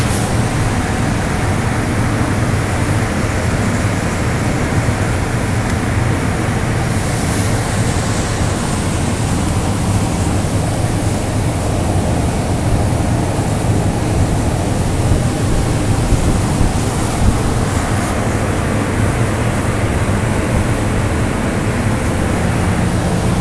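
CNC profile cutter's flame-cutting torch burning through steel plate: a loud, steady rushing hiss over a low, steady hum.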